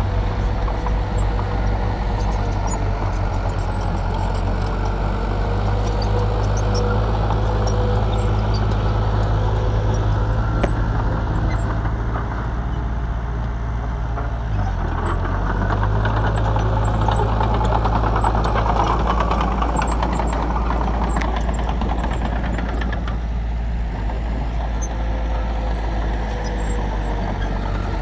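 Diesel engine of a small crawler bulldozer running steadily under load as it pushes soil. The engine note dips briefly about halfway through.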